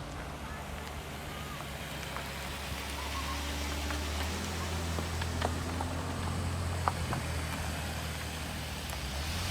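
Car driving slowly: a steady low engine hum whose pitch shifts slightly, over a hiss of road and wind noise, with a few faint sharp clicks.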